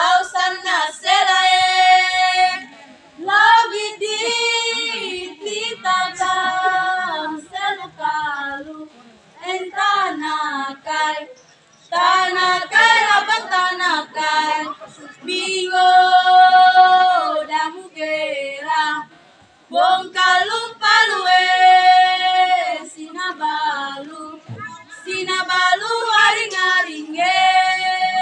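Female voices singing a traditional song without instruments, in held, drawn-out phrases broken by short pauses.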